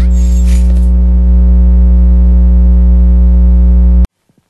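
A loud, steady electronic buzz: a low hum with many overtones, with a brief hiss in the first second, cutting off abruptly about four seconds in.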